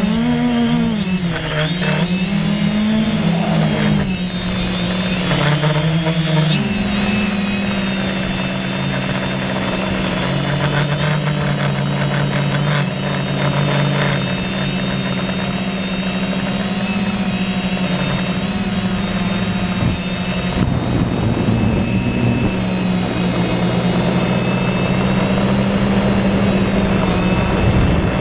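Multirotor drone's electric motors and propellers buzzing as it lifts off and climbs, the pitch rising and falling during the first few seconds and then holding a steady hum. A constant high thin whine runs underneath.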